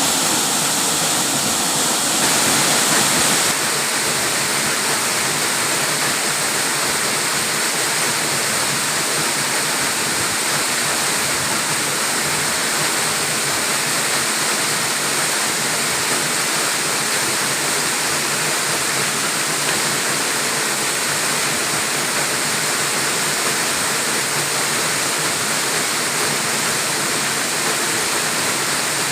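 Waterfall pouring steadily: a dense, even rush of falling water, dipping slightly in level about three and a half seconds in.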